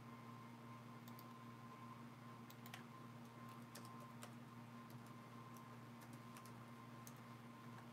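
Near silence: room tone with a steady low electrical hum and a faint steady higher tone, broken by faint, irregular light clicks.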